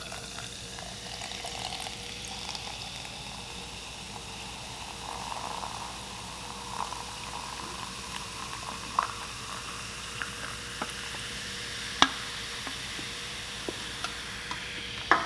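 Freshly poured Sprite fizzing, a steady crackling hiss of carbonation bubbles popping, with scattered small ticks and one sharp click about twelve seconds in.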